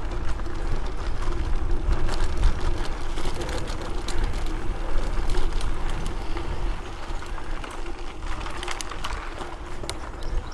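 Mountain bike rolling at speed: wind buffeting the camera's microphone over a steady hum from the tyres and drivetrain, with scattered clicks and rattles from the bike. The wind noise eases somewhat about two-thirds of the way through.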